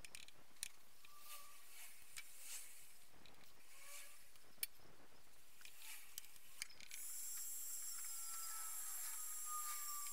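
A paintbrush working thick enamel paint onto a cast-iron vice base: soft hissing bristle strokes with scattered light taps and clicks. About two-thirds of the way in, a steadier, louder hiss sets in with a faint high whistle.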